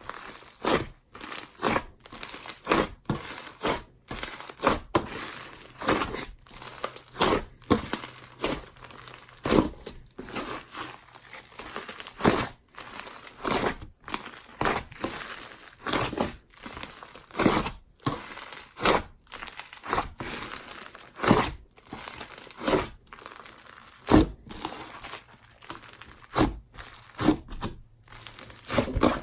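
Hands squishing, poking and stretching a dense clay slime, making irregular sticky crackles and sharp pops about once or twice a second.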